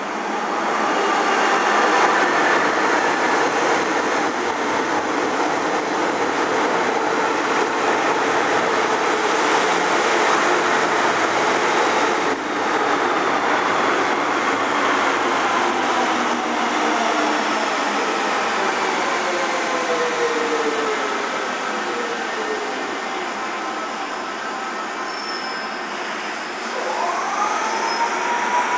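MTR M-Train electric multiple unit pulling into the station and braking, with wheel and rail noise and wheel squeal. Several motor whines fall in pitch as it slows. Near the end a single tone rises and then holds steady.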